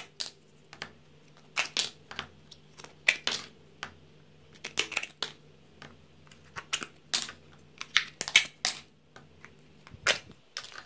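Thin plastic snap-on lids being popped off small plastic tubs of slime one after another: a series of sharp plastic clicks and snaps, often in quick pairs, as each lid comes free and is set down.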